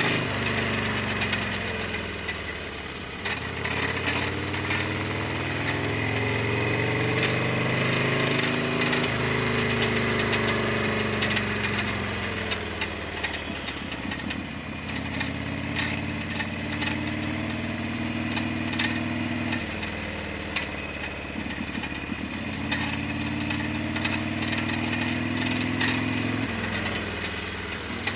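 Harley-Davidson Sportster XL1200's air-cooled V-twin engine running while the bike is ridden. Its pitch climbs as it accelerates and drops back in steps at gear changes, several times over. Many short ticks and clicks sound over the engine.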